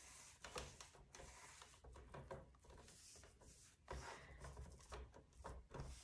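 Faint, irregular swishes and light scrapes of a paintbrush stroking enamel paint onto a cabinet door.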